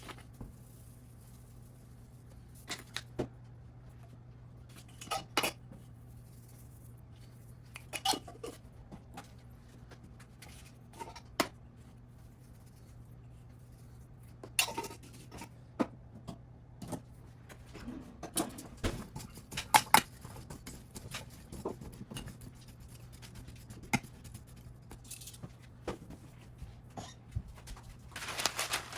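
Scattered clinks and knocks of kitchen dishes and utensils being handled, more frequent in the second half, over a steady low hum.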